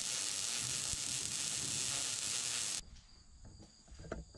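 Wire-feed welding arc crackling and sizzling steadily as a bead is laid on a steel frame, stopping suddenly about three seconds in.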